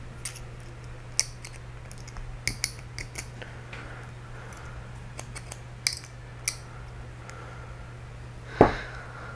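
A metal tool and the metal gears of an RC differential clicking and clinking as a gear is lifted off the differential. There is a string of light, sharp clicks, then one much louder clunk near the end.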